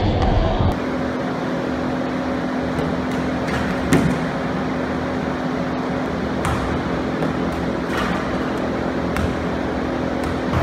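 Steady air-handling hum in a large gym, with a low held tone running under it. A few faint knocks, and one louder thud about four seconds in.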